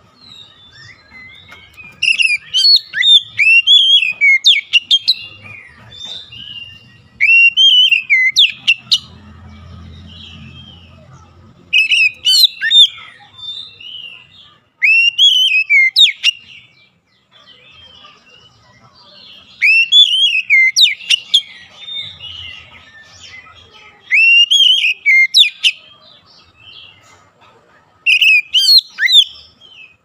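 Male Oriental magpie-robin singing: loud, varied whistled phrases of quick rising and falling notes, given in bursts of one to two seconds about every three to four seconds.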